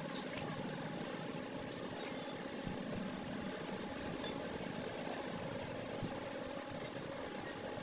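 Steady mechanical hum like a motor running, with a few light clicks scattered through it.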